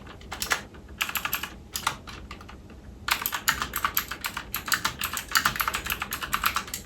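Typing on a mechanical keyboard with clicky blue switches: fast runs of key clicks, thinning out for about a second around two seconds in, then a denser, steady stretch of typing.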